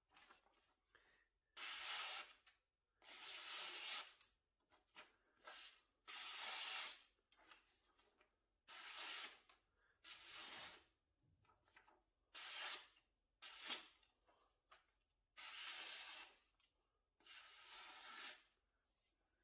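Freshly sharpened deba knife slicing through a hand-held sheet of paper, about ten separate cutting strokes of up to a second each, with short pauses between. This is a paper test of the edge's sharpness after the whetstone.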